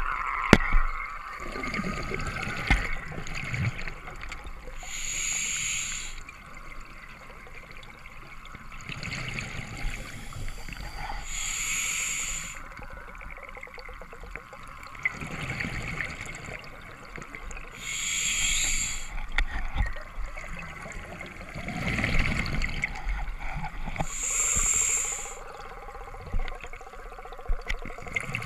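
Scuba diver breathing through an open-circuit regulator underwater: a short hiss on each of about four inhales, one every six or seven seconds, and a low bubbling rumble of exhaled bubbles between them.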